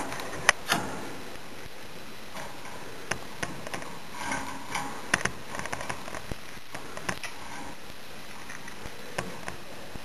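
Irregular light clicks and taps of a budgerigar chick's beak pecking at a hard plastic ball with holes.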